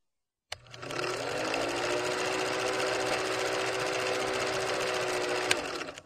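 Film projector running: a steady, rapid mechanical clatter with a hum that rises briefly as it gets up to speed, starting about half a second in. There is a single click near the end before it cuts off.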